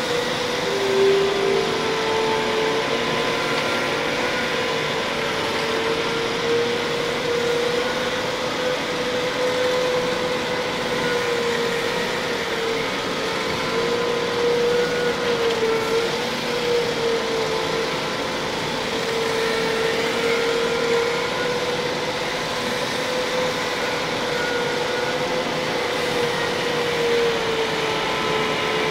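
Large honing machine running, its rotating hone working inside a 20-inch hydraulic cylinder bore: a steady machine drone with a whine that rises in pitch about a second in, then wavers slightly.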